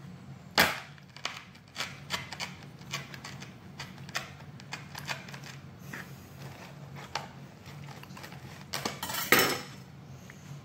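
Kitchen knife cutting through a carp on a wooden cutting board: a string of sharp clicks and knocks as the blade presses through the fish and meets the board, with a loud knock about half a second in and a louder cluster near the end.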